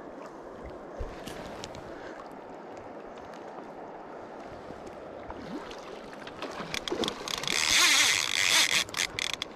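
Salmon fly reel's clicking drag buzzing loudly for about two and a half seconds near the end as a hooked salmon pulls line off it, over a steady rush of river water.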